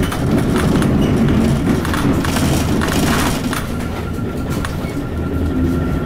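Cabin running sound of an Isuzu KC-LV380N bus, its V8 diesel engine running under way, with short clicks and rattles throughout. The loudness dips a little about four seconds in.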